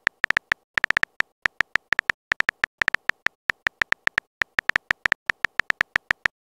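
Simulated phone-keyboard typing sound effect: a quick, irregular run of short, bright tapping clicks, about six a second.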